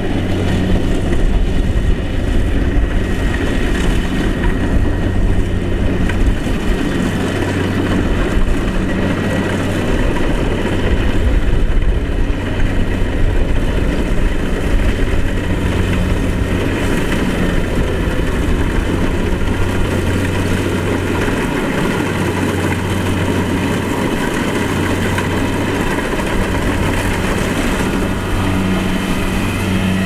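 Kubota DC-70 Plus crawler combine harvester running steadily while it cuts and threshes rice: a constant low engine drone with a dense mechanical rush over it.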